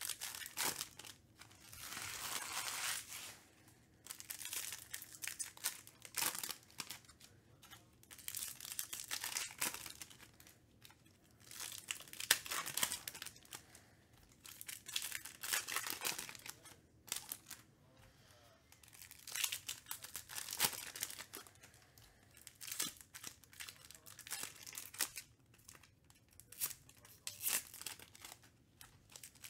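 Trading-card packaging being torn open and crinkled by hand: wrappers and plastic of baseball card boxes and packs. It comes in repeated rustling, tearing bursts with short pauses between them.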